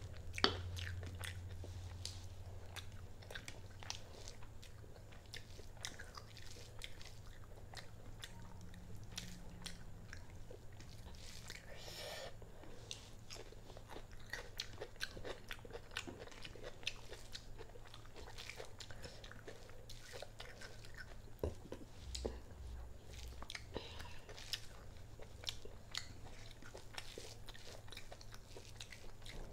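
Close-miked eating sounds of someone eating chicken and rice by hand: chewing, lip smacks and many short wet mouth clicks throughout.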